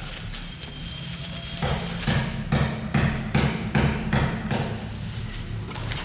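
Hammering: a run of regular blows, about two or three a second, starting up after a pause of about a second and a half.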